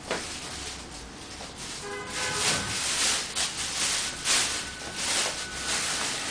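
Rustling, rubbing handling noise over a steady hiss, growing louder about two seconds in, with a few faint short tones around that point.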